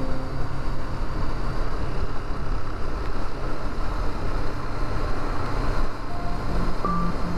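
Honda 400X motorcycle's parallel-twin engine running steadily at cruising speed under heavy wind rush. Short musical notes come in near the end.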